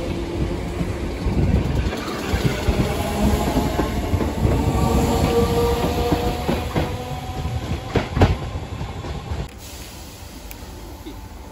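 Merseyrail Class 508 electric multiple unit running past along the platform and away, with a steady rumble and whine and a few sharp clicks of wheels over rail joints. The sound drops off suddenly about nine and a half seconds in.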